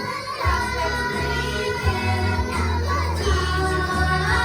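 Young voices singing a musical-theatre song over instrumental accompaniment with a steady bass line.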